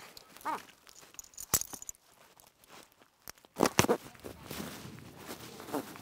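Sharp clicks and knocks of climbing hardware, carabiners and a pulley on a tensioned rope traverse. The loudest knocks come in a quick cluster about three and a half seconds in, with short calls from voices near the start and the end.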